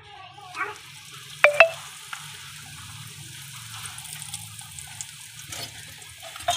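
A wheat rotli frying in oil on a hot iron tawa: a steady sizzle starts about half a second in as the bread is pressed onto the griddle. Two sharp clicks, the loudest sounds, come about a second and a half in, over a faint low hum.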